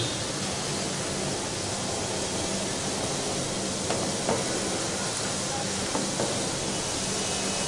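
Small rounds of maida dough (zeera papri) deep-frying in hot oil in a steel kadai: a steady bubbling sizzle on medium heat, with a few light taps about four and six seconds in.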